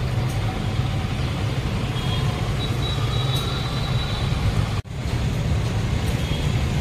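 Road traffic, with vehicle engines running as a steady low rumble. The sound cuts out for a split second about five seconds in.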